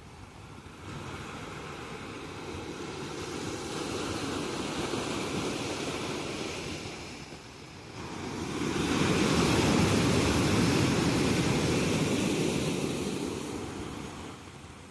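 Sea waves breaking and washing up the shore in two surges, the second louder.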